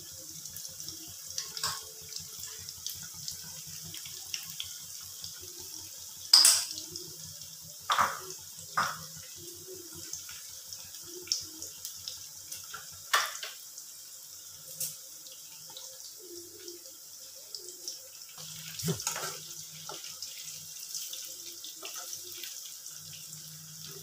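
Chicken pieces deep-frying in a kadai of hot oil, a steady sizzling hiss, with a wire spider skimmer knocking against the metal pan now and then, loudest about six and eight seconds in.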